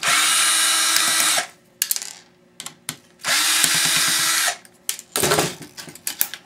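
Cordless drill driving out small laptop case screws in two runs of about a second and a quarter each, the motor spinning up and winding down each time. Sharp clicks come between the runs, and a short clatter comes near the end.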